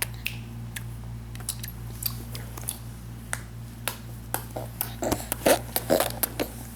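A series of short, sharp clicks at irregular intervals, coming closer together for a stretch about five seconds in, over a steady low hum.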